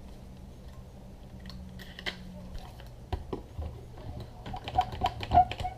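Irregular small clicks and knocks of a clamp being worked and tightened onto a bent wooden strip held against a plywood form, growing busier and louder about five seconds in.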